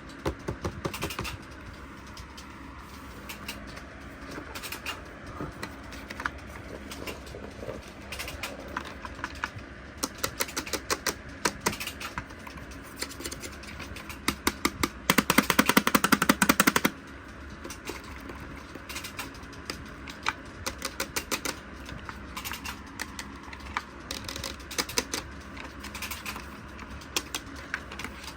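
Plastic clicking and rattling from a toy and its packaging being handled, in scattered runs of quick clicks, with a louder two-second burst of fast, even clicks about fifteen seconds in.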